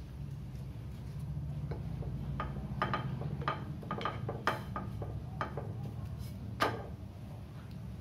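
Wooden spatula clicking and scraping against a non-stick tawa as a paratha is turned over, about ten light taps, the loudest near the end, over a steady low hum.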